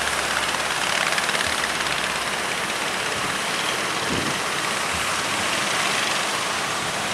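Steady rushing roar of breaking surf and strong wind, with no distinct pitch.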